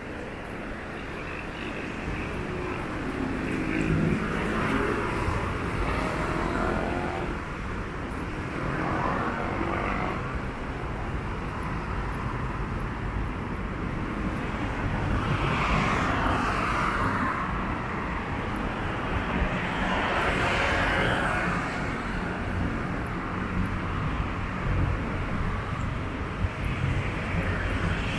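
Urban roadside ambience with light traffic: a steady low rumble, and several cars passing one after another, their engine and tyre noise swelling and fading about four times.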